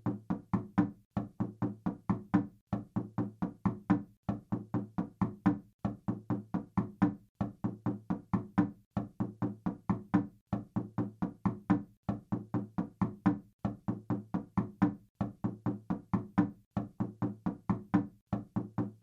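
Knuckles knocking on a wooden door in quick, evenly repeated groups of about five or six knocks, each group followed by a short pause. The knocks have a dull, woody thud.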